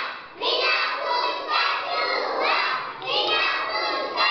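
A group of young children shouting together in high voices, many at once, with a short lull about half a second in.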